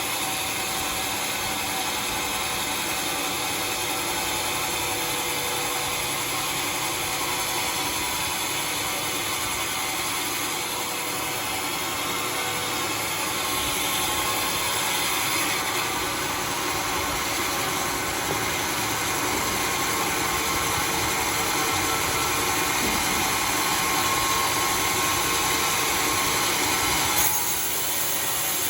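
Homemade sawmill running steadily as its saw cuts through a red bayur log, a little louder from about halfway through.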